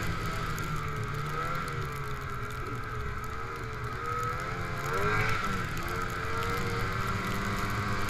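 Snowmobile engine running at speed, its pitch wavering with the throttle; the revs climb and drop back briefly about five seconds in.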